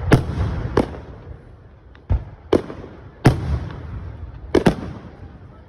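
Fireworks display: aerial shells bursting in a run of sharp bangs, about seven in all, two of them close together near the end, each trailing off in a rolling rumble.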